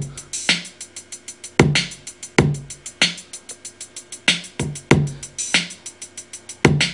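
Programmed drum loop playing from a Native Instruments Maschine step sequencer. Closed hi-hats tick fast and evenly on every step under kick and snare hits, with an open hi-hat newly placed in the pattern.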